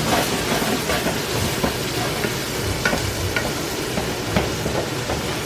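Onions, mushrooms and chopped garlic sizzling in butter in a frying pan while they are stirred, with a few short clicks of the utensil against the pan.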